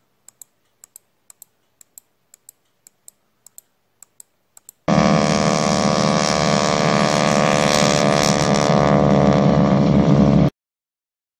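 A run of light clicks, often in pairs, for the first four or five seconds. Then a loud, steady engine drone with many overtones cuts in abruptly and cuts off just as abruptly about a second before the end.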